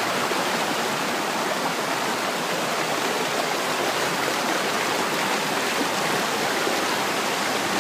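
Shallow rocky stream rushing and splashing over and between rocks: a steady, unbroken rush of water.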